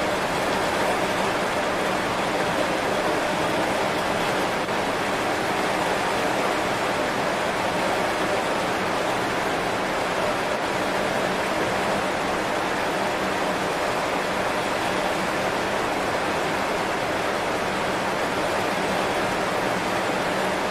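Heavy rain falling steadily on banana leaves: an even, unbroken hiss of drops.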